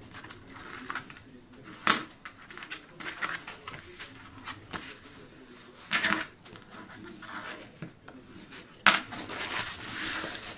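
Paper and card rustling as they are handled and pressed, with three sharp clicks about two, six and nine seconds in.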